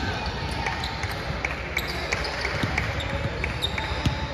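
Basketball game play: a ball bouncing on the court in a run of sharp knocks, with short high squeaks over a steady murmur of the gym.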